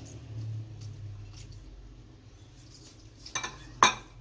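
Glass bowls clinking as chopped onion is tipped from a small glass bowl into a glass mixing bowl: quiet at first, then three sharp clinks near the end.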